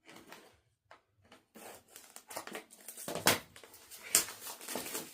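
Product packaging being handled and opened: rustling, crinkling and tearing, with sharper scrapes about three and four seconds in.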